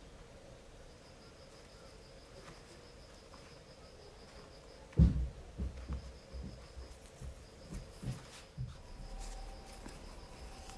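A faint, high insect chirring that pulses on and off in the background, like crickets. About five seconds in comes a sharp low thud, followed by several softer knocks over the next few seconds.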